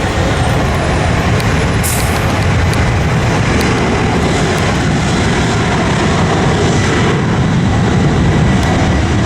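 Alaska Airlines airliner's engines at takeoff power during the takeoff roll: a loud, steady rumble and rush.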